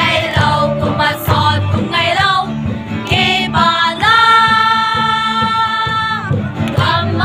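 Music with singing: a sung melody over a steady low accompaniment, with one note held for about two seconds a little past the middle.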